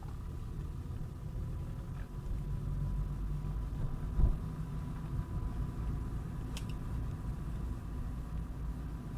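Bajaj Dominar 400's single-cylinder engine running steadily at low revs, with one thump about four seconds in and a short click near six and a half seconds.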